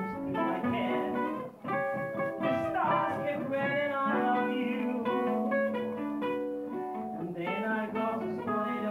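A ukulele strummed as accompaniment to a man singing, the two together as one song; the sound drops out briefly about one and a half seconds in.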